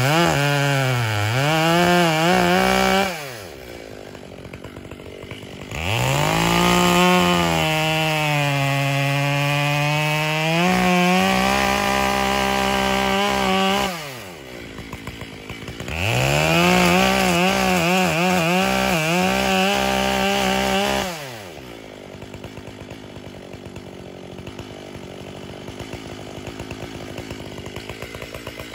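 Makita (Dolmar) two-stroke chainsaw cutting the felling notch into the trunk of a big sugar maple. It revs to full throttle three times, the pitch sagging as the chain bites into the wood. Between the cuts it drops back to idle, and it idles steadily for the last several seconds.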